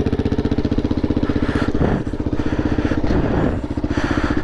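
Single-cylinder four-stroke dirt bike engine running at a steady idle, an even rapid thumping.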